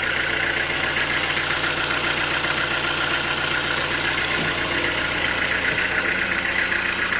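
Sawmill engine running steadily at constant speed, with a low hum and a fast, even buzz over it.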